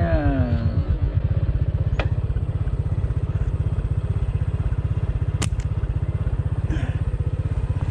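Motorcycle engine running at a steady cruise, a fast, even low throb with no change in speed. Two brief sharp clicks cut through it, about two seconds in and again near the middle.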